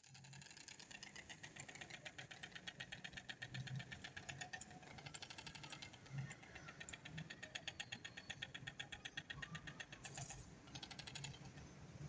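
White storks bill-clattering: a faint, fast, even rattle of clicks that keeps going with short breaks.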